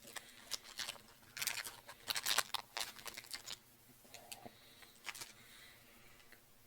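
Chewing a big bite of a Mars bar (chocolate with nougat and caramel) close to the microphone: a run of wet mouth clicks and crackles, busiest in the first half, with a short hum about four seconds in.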